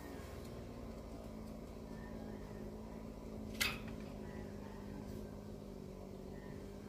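Faint steady hum, with one short scrape about three and a half seconds in from the red fox's claws on the wooden box top as it shifts its footing.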